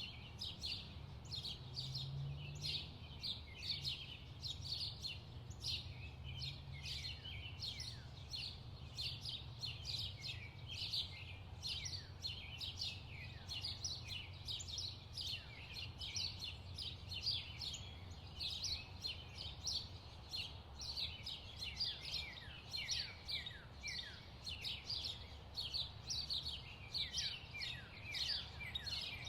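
Many small birds chirping and twittering without pause in a dense chorus of short, quick, mostly downward-falling notes, over a low steady rumble.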